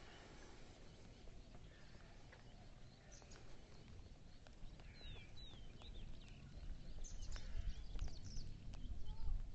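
Faint outdoor ambience: a low rumble of wind on the microphone, a few short, falling high chirps about five seconds in, and scattered light clicks, the rumble growing louder near the end.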